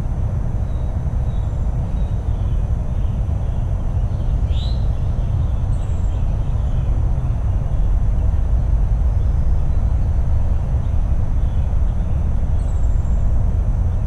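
Outdoor garden ambience dominated by a steady low rumble, with a few faint bird chirps, the clearest about four seconds in.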